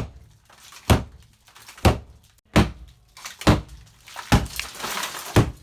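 Repeated blows striking an interior boarded stud wall as it is knocked down, about one thud a second, with debris crumbling and falling between the later strikes.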